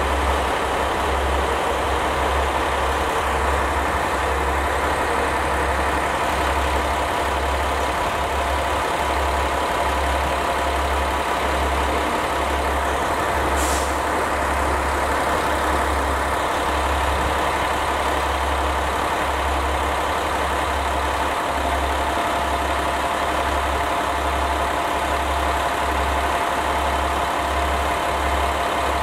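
A diesel engine idling steadily, with a constant low hum, and one brief high sound about halfway through.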